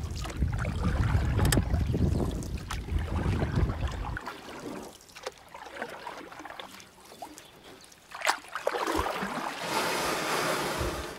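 Wind buffeting the microphone outdoors: a heavy low rumble that stops abruptly about four seconds in. Then comes lighter outdoor noise with scattered clicks, and a steady rushing hiss near the end.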